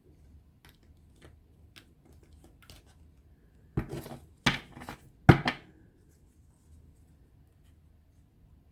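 Deck of angel cards handled and shuffled by hand: a few light clicks, then three louder short shuffling strokes between about four and five and a half seconds in.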